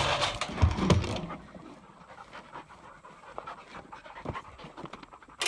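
A dog panting behind a chain-link kennel fence. The first second also holds louder handling noise, and there are light clicks and rustles.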